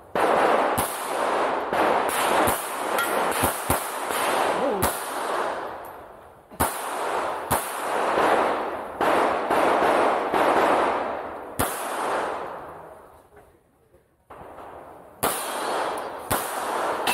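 Pistol shots fired during a practical shooting stage, each ringing out with a long echoing tail. There is a quick string of about eight shots, then slower, spaced shots, a pause of a couple of seconds, and two final shots near the end.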